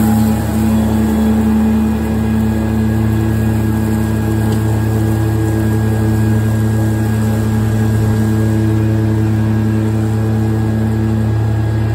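Kubota ZD1211 zero-turn mower's three-cylinder diesel engine running at a steady speed while its deck blades cut through thick, waist-high grass and weeds.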